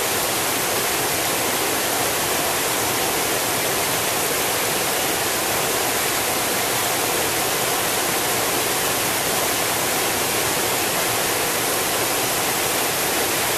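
Fast-flowing mountain water rushing steadily: an even, unbroken hiss spread from low to high pitches.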